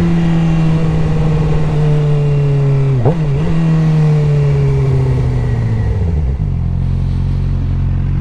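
Suzuki GSX-R 600 inline-four sportbike engine slowing on engine braking, its pitch falling steadily, with a quick blip about three seconds in as on a downshift. About six seconds in it drops to a low, steady idle.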